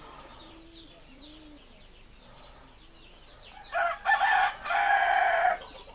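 A rooster crowing loudly about four seconds in: one long call of nearly two seconds with a short break near its start. Before it, faint cooing of doves and small birds chirping.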